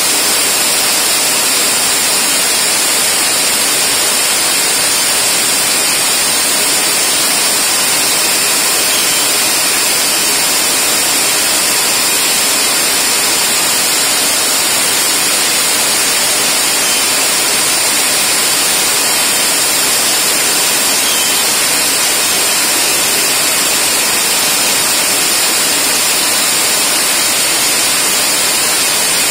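Steady hiss of a compressed-air blast clearing chips while a Deckel FP4A milling machine cuts 4140 steel with an 8 mm roughing end mill on an adaptive toolpath.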